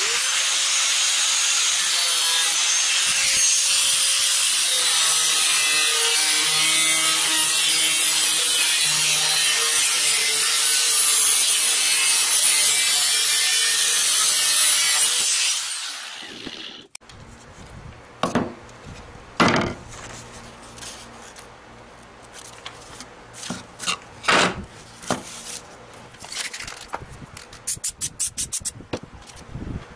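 A power tool running under load, at first an angle grinder cutting into a steel circular saw blade: a steady, loud grinding hiss that stops about fifteen seconds in. After it, quieter rubbing and scraping with a few sharp knocks.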